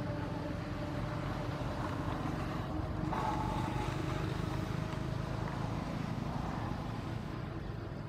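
Steady low rumble of distant motor traffic, with a faint engine hum under it.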